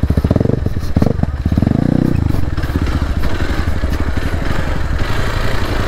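Hero Xpulse 4V motorcycle's single-cylinder engine running while being ridden, its firing pulses dense and steady, louder in the first two seconds.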